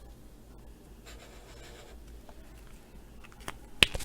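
Felt tip of an alcohol marker scribbling a colour swatch on paper, followed by a couple of sharp clicks about three and a half seconds in.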